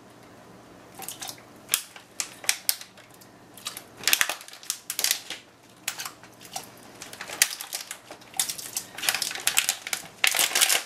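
Plastic bag crinkling and rustling in irregular crackles, starting about a second in, as fresh pasta is tipped out of it into a Tupperware Stack Cooker.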